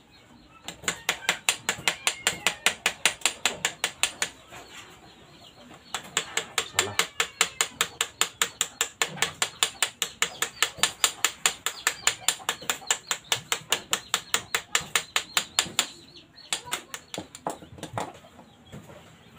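Quick, even tapping of a hand tool, about five or six taps a second, as a cardboard carburetor gasket is worked to shape. It pauses for a couple of seconds about four seconds in, and the taps turn sparse and irregular near the end.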